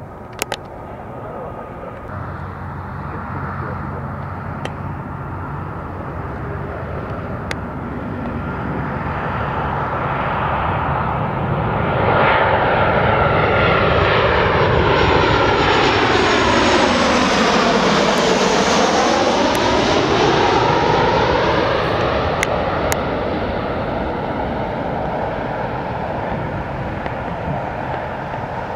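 Boeing 737 turbofan engines on final approach, gear down, passing low overhead. The engine noise grows, is loudest a little past the middle with a sweeping, phasing whoosh as the jet passes directly over, then slowly fades as it goes on to land.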